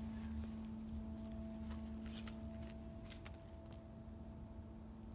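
A cat crunching dry kibble from a plastic dish: a few scattered crisp crunches over a steady low hum.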